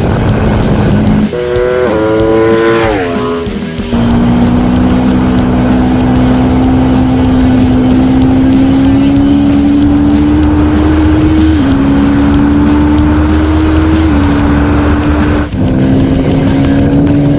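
Aprilia Tuono V4 1100's V4 engine pulling the moving motorcycle. About two seconds in, a short rev climbs and falls. After that the engine note climbs slowly, broken twice by quick drops in pitch at upshifts.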